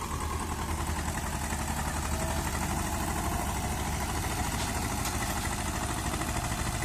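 Eicher 333 tractor's diesel engine running steadily under load as it pulls a paddy-laden trolley through deep mud.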